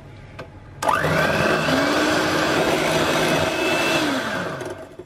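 Electric hand mixer switched on about a second in, its motor whirring up to speed as the twin beaters whisk egg white and stevia, then switched off near the end, its pitch falling as it winds down.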